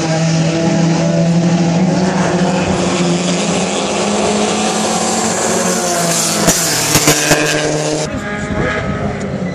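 Porsche 944 race car engines running at a steady pitch out on the circuit, with no car passing close. A few brief sharp bumps come about two-thirds of the way through.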